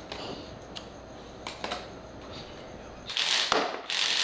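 Hand socket ratchet clicking in quick runs, with a few small metal clicks early on and the loudest ratcheting in the last second.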